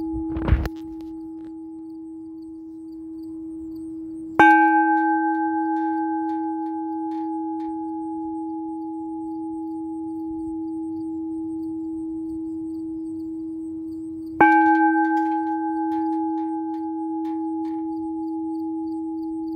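Bell made from an old propane gas tank, ringing with a long, steady deep tone. It is struck twice by its clapper, about four and a half seconds in and again ten seconds later; each strike starts bright with higher overtones that fade within a few seconds, leaving the low hum. A brief low thump comes just after the start.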